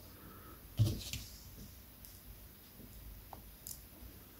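Small plastic parts handled close to the microphone: one light knock about a second in, then a few faint clicks, as a 3D-printed resin brake caliper is seated onto the hub bracket of a 1:10 RC car.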